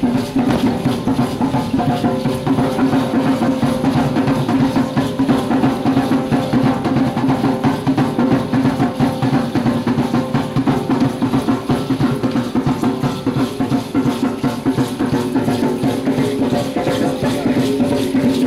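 Music for an Aztec-style dance (danza azteca): fast, steady drumming with other percussion.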